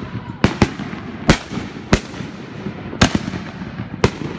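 Aerial fireworks bursting: six sharp bangs at uneven intervals, each trailing off in an echo.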